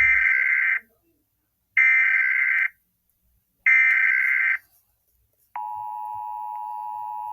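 Emergency Alert System SAME header: three buzzy digital data bursts of just under a second each, about two seconds apart. About five and a half seconds in, a steady, quieter NOAA Weather Radio 1050 Hz alert tone begins, opening a tornado watch alert.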